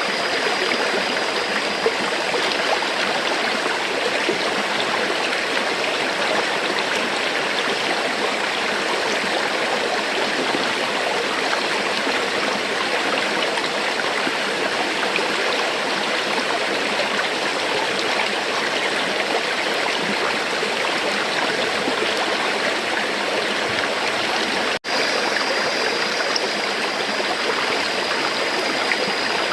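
River water flowing steadily, a continuous rushing, gurgling wash. The sound drops out for a split second about 25 seconds in, then resumes unchanged.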